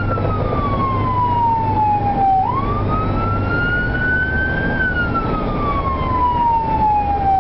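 Emergency vehicle siren on a slow wail, heard from inside a moving vehicle's cabin. The pitch falls, jumps back up about two and a half seconds in and climbs, then falls again near the end, over a steady engine and road rumble.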